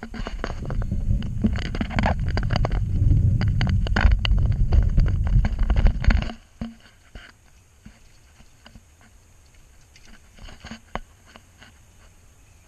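Bicycle riding over a rough dirt path, heard through a camera on the bike: a loud rumble full of crackling and rattling clicks. About six seconds in it drops suddenly to faint, scattered ticking.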